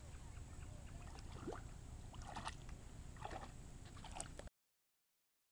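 Faint sloshing and light splashes of shallow pond water as a border collie wades slowly through it, over a low steady rumble. The sound cuts out completely about four and a half seconds in.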